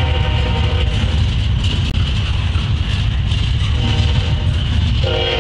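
A locomotive's Nathan K5HLL five-chime air horn sounding in blasts: the chord cuts off about a second in, gives a short faint blast near four seconds, and comes back strongly near the end. Under it, the steady low rumble of freight trains passing.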